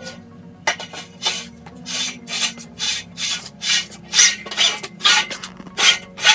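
Aluminum whisker pole tubes scraping against each other as the smaller tube is worked into the bigger one, in a quick series of rasping strokes, about two to three a second.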